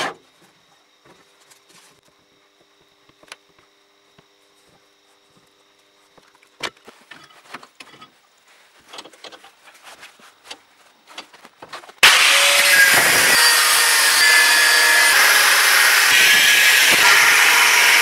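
Faint scattered taps and clicks of work on a steel bar at a bench. Then, about two-thirds of the way in, an angle grinder starts suddenly and cuts into the steel with a loud, steady grinding.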